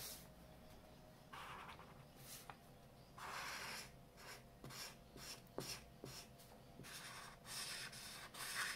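Felt-tip markers scratching across paper while colouring in: several faint short strokes, each half a second to a second long, with a few light ticks between them.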